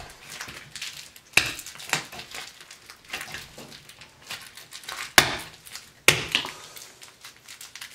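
Tissue paper and crinkly plush cat toys rustling and crackling as they are handled and pulled out of a cardboard box, with three sharp, louder crackles about a second and a half, five and six seconds in.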